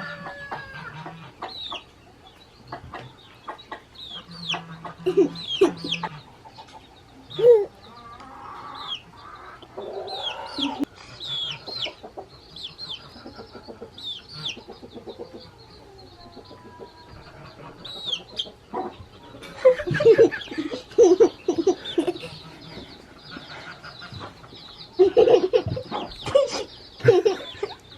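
Chicken clucking, with many short, high, falling calls in between; the clucking comes in louder runs in the second half.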